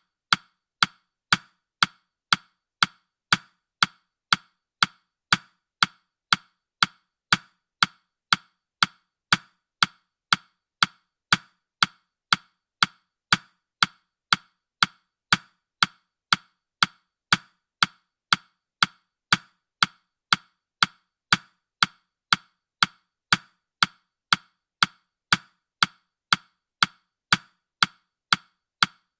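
Countdown timer's ticking sound effect: short, sharp ticks, evenly spaced at about two a second.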